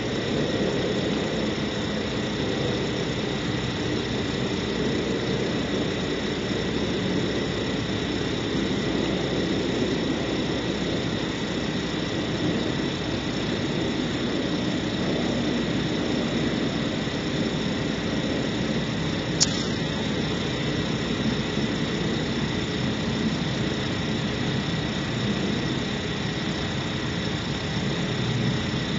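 Steady background noise from the owl-cam's outdoor microphone: a low rumble with a thin, steady high electronic whine over it, and one sharp click about two-thirds of the way through. No owl calls stand out.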